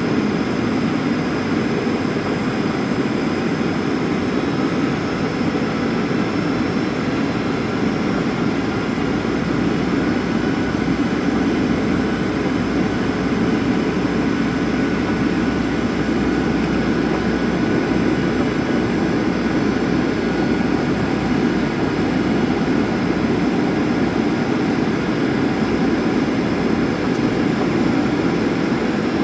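Boeing 737 cabin noise in flight: a steady, dense rush of engine and airflow noise, with faint steady engine tones above it, heard from inside the cabin.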